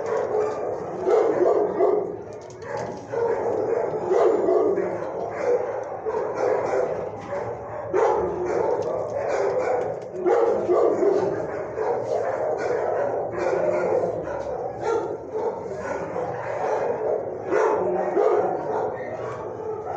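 Dogs in shelter kennels barking, the barks overlapping with hardly a pause.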